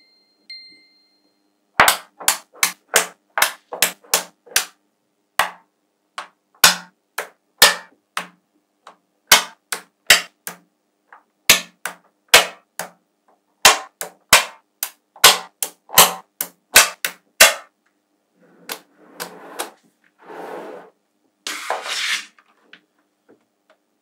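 Magnetic balls snapping together: a long run of sharp, irregular clicks, about two a second, as blocks of the balls are pressed onto one another. Near the end come a few longer rasping sounds.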